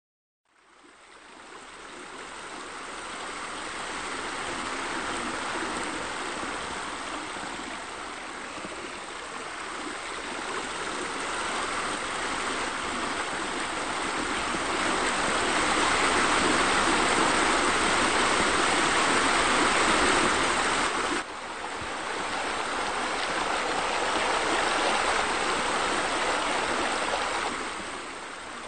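Steady rush of running water, like a stream or small waterfall, fading in over the first few seconds, swelling toward the middle and dropping out for an instant about three-quarters of the way through.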